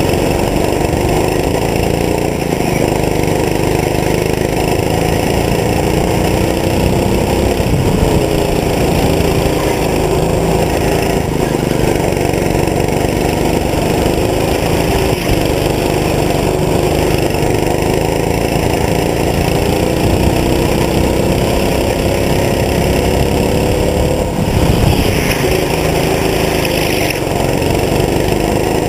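Go-kart's small engine heard from on board, running continuously, its pitch rising and falling with the throttle through the lap.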